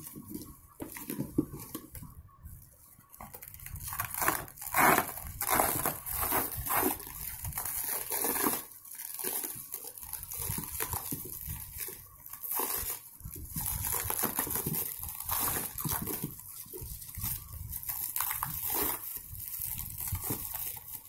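Plastic wrap crinkling and rustling, with cardboard and packing foam scraping, as a shrink-wrapped wooden serving tray is lifted out of its box and handled. Irregular rustles throughout, loudest about five seconds in.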